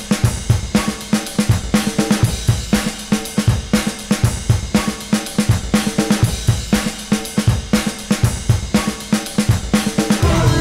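Drum break played on a drum kit: kick drum, snare and hi-hat with cymbal in a steady repeating groove.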